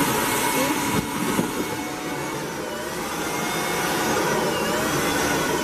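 Electric balloon inflator running steadily, blowing air through a drinking straw into a foil balloon: a loud, even blower hiss with a motor whine that wavers slightly in pitch.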